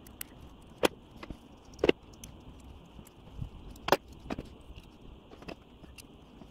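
Sharp metallic clicks and clinks of a small flat wrench, nut and steel blade as a grafting pruner's blade is unbolted to change it, with three louder clicks among several faint ones.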